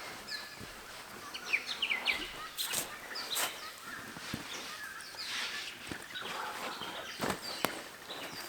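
Several birds chirping and calling in short, quick notes, over a light outdoor hiss, with a few sharp clicks in between.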